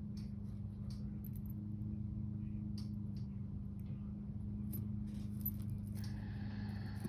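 Small, faint clicks and clinks of glass beads, beading wire and jewelry pliers being handled, over a steady low hum. A rush of heavy breathing comes in near the end.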